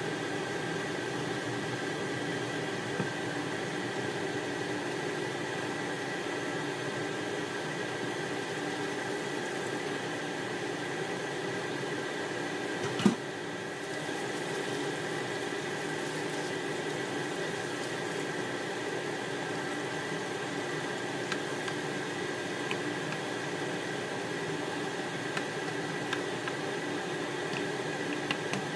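Steady hum of an induction cooktop with a faint whine, while butter melts in a non-stick pan; in the last few seconds the foaming butter gives faint crackles. One sharp click about halfway through.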